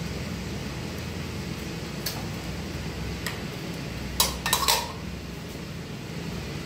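A few sharp metallic clinks and clatters of hand tools against metal cable-joint parts, bunched together just past the middle, over a steady low hum.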